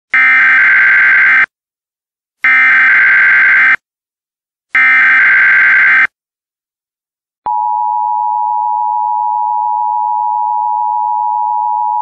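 Emergency Alert System tones opening an alert: three bursts of SAME header data, a harsh digital screech, each a little over a second long with short gaps between, then the steady two-tone attention signal starting about seven and a half seconds in.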